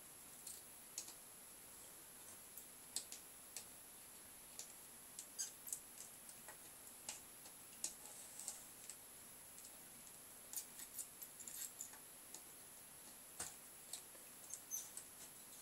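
Faint, irregular small clicks and taps from desoldering work on a circuit board: a soldering iron tip on the solder joints and the component's leads as a heat-sinked part is worked loose.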